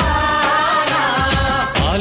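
Telugu film song: a singer holds one long, wavering note over a drum beat, starting the next word near the end.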